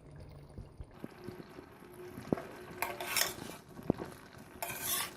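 Spoon stirring in a karahi, with two sharp clinks against the pan and a few short scraping noises.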